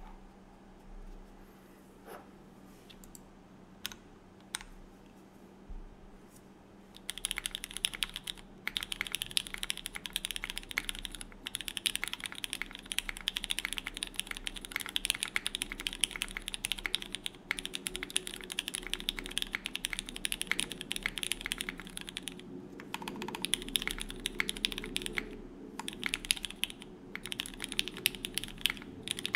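Typing on a mechanical keyboard with Cherry MX Red linear switches lubed with 205g0, in an o-ring-mounted board with a UHMWPE plate and GMK keycaps. A few separate key presses come first, then steady fast typing from about seven seconds in, broken by a few brief pauses.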